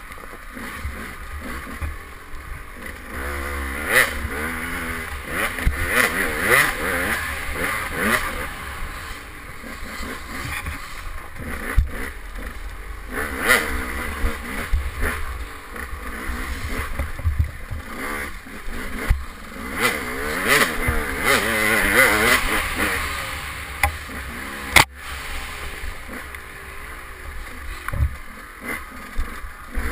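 KTM 200 XC two-stroke single-cylinder dirt bike engine revving up and down in repeated surges as it is ridden hard, with a few sharp knocks from the bike hitting bumps.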